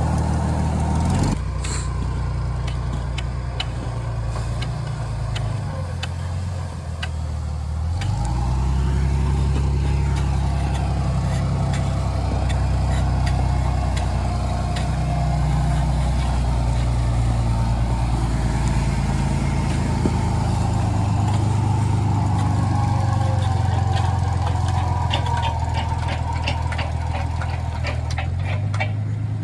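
Engine of a post-hole auger machine running under load as the auger turns, its pitch dropping about a second in and rising again near eight seconds, with scattered clicks and rattles over the hum.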